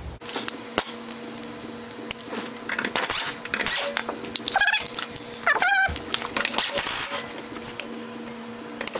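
A 13 mm socket wrench and other metal hand tools clicking and clattering irregularly as a suspension bolt is worked under the car, over a steady low hum. Two short whining sounds that bend in pitch come about halfway through.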